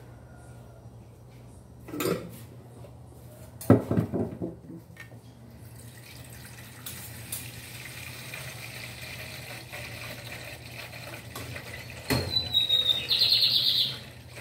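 Dishes and pans clattering in a kitchen sink, the loudest knocks about four seconds in. A tap runs steadily from about six seconds in, louder near the end.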